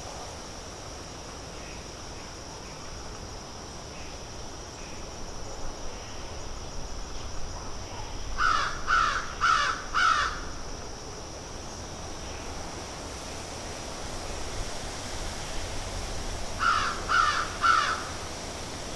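A crow cawing in two runs of harsh calls, four in a row about halfway through and three more near the end. Beneath it runs a steady high-pitched hum and a light outdoor hiss.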